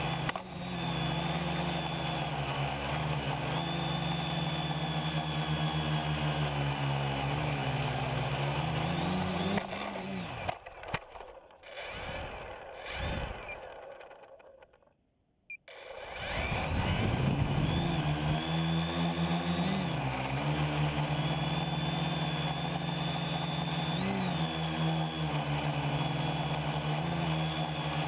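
Quadcopter's electric motors and propellers whining steadily in flight. About ten seconds in the whine falls away and the motors wind down to near silence as the craft settles in the grass, then they spin back up and it takes off again.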